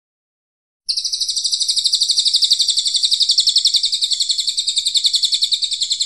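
Cililin coklat songbird singing one long, rapid trill of evenly repeated high notes. It starts about a second in, runs about five seconds, and stops abruptly. This is the harsh rapid-fire 'tembakan kasar' song used as a tutor song for competition birds.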